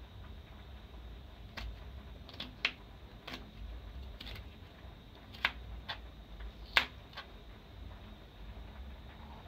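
Kitchen knife slicing a red onion on a plastic cutting board: about nine irregularly spaced taps of the blade against the board, which stop a couple of seconds before the end.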